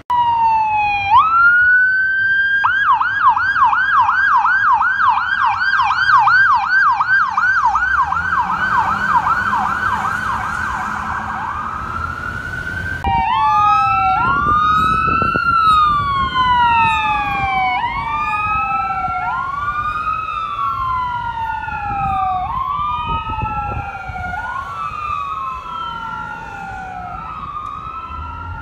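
Emergency vehicle sirens on a code 3 response. An ambulance siren rises in a wail, then switches to a fast yelp of about three cycles a second. After a sudden break, another siren sweeps in a slower wail, each cycle rising quickly and falling over about two seconds.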